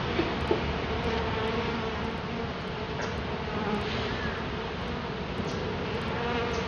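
Dense, steady buzzing of a large swarm of feral Italian honey bees flying around their opened colony. Two brief light knocks come right at the start.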